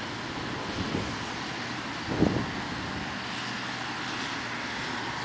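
Wind rushing over the microphone under a thunderstorm, with a louder low buffet about two seconds in.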